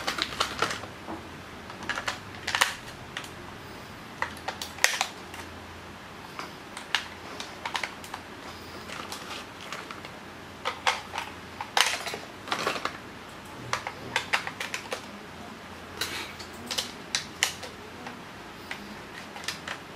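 Irregular plastic clicks and taps from a toy quadcopter's remote controller being handled and turned over, its battery compartment open, some clicks coming in quick clusters.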